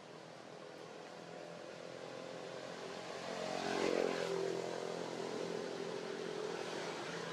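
A distant engine hum, a steady drone that swells to its loudest about four seconds in and then eases off a little, like a vehicle or aircraft passing.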